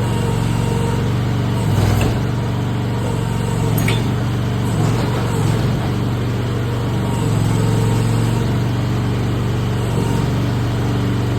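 Mini excavator's small engine running steadily, just started on choke from cold. A couple of sharp knocks come about two and four seconds in.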